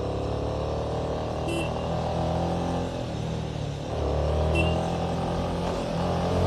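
Motorcycle engine pulling on a wet road, its pitch rising, dropping about three seconds in and climbing again, as on gear changes. Two short high beeps sound about a second and a half in and again near the middle.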